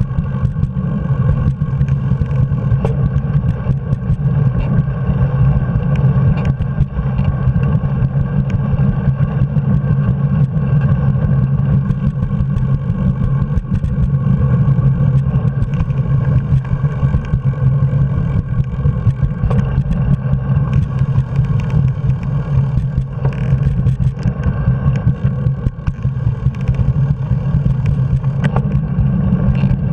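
Steady wind and road rumble picked up by a handlebar-mounted action camera on a moving bicycle, heaviest at the low end and unbroken throughout.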